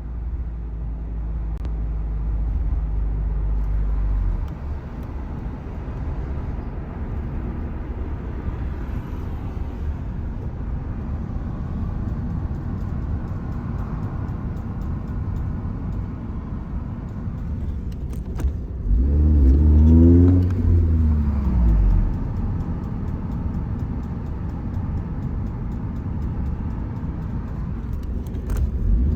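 Honda Civic Type R (FN2) running while being steered to the right, with faint clicks over the steady hum of its four-cylinder engine; the engine note swells and falls once about two-thirds of the way through. The clicking comes only when turning right with the car warm to hot, not just at full lock.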